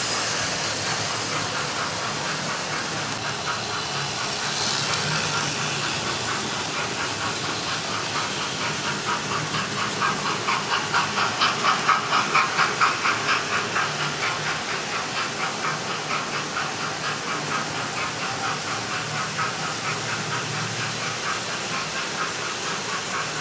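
Model railway trains running on the layout: a steady hiss and whirr of wheels and motors on the track, with a quick rhythmic beat that comes in about ten seconds in and is loudest soon after.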